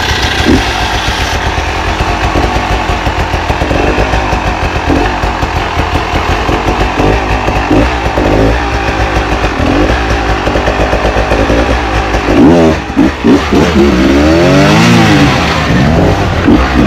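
Enduro dirt bike engine running hard off-road, the throttle worked on and off in quick pulses; from about twelve seconds in it revs up and down in rapid rising and falling sweeps.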